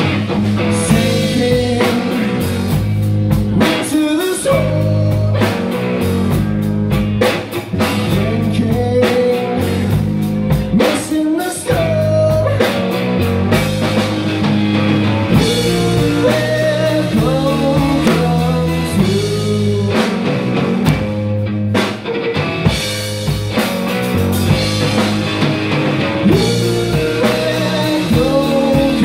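Live rock band playing: electric guitar, bass guitar and a Gretsch drum kit, with a sung vocal over them.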